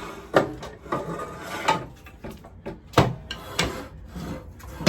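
A series of sharp knocks and scraping rubs against wood, about a second apart, with the loudest knock about three seconds in: a heavy saw being handled and set against a wooden beam.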